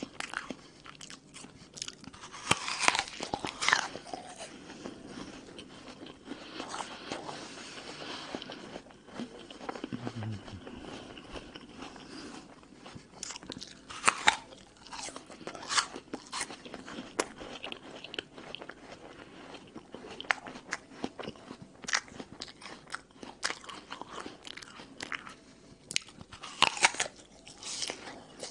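Crisp bites into a raw red apple and the chewing of its crunchy flesh, close up. Loud crunches come in clusters about 3 s in, near the middle and near the end, with quieter chewing between.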